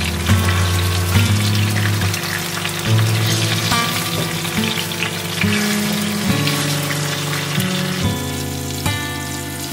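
Masala-coated red snapper shallow-frying in oil, sizzling steadily, while a wooden spatula nudges and turns the fish in the pan.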